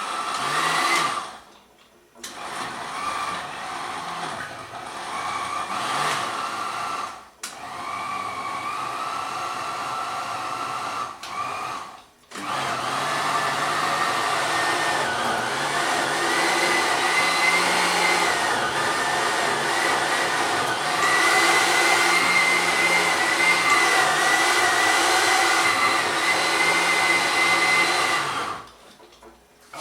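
Blender motor chopping raw duck liver, pulsed in short runs with brief stops about 2, 7 and 12 seconds in, then run steadily for about 16 seconds and switched off near the end. The liver is only being shredded, not puréed, so it can be strained.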